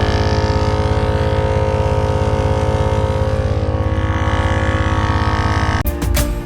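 Jeep Wrangler engine idling steadily with an even low pulsing. Guitar music comes in near the end.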